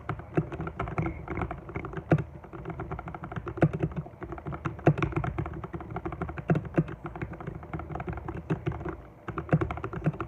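Typing on a mechanical keyboard with lubed Outemu Brown tactile switches, muffled: a fast, uneven stream of key presses with a brief pause about nine seconds in.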